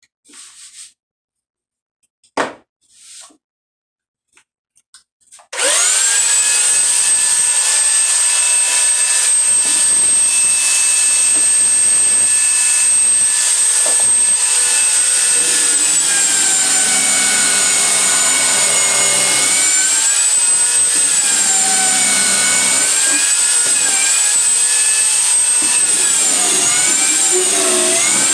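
A few light knocks and rubs, then an electric sander switches on about five seconds in and runs loud and steady with a high whine. Its pitch wavers up and down in the second half.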